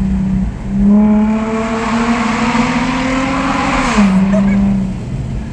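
Nissan 350Z's 3.5-litre V6 through a Tomei dual exhaust under acceleration. The engine note dips briefly about half a second in, then climbs in pitch for about three seconds. About four seconds in it drops sharply as the revs fall, then settles back to a steady drone.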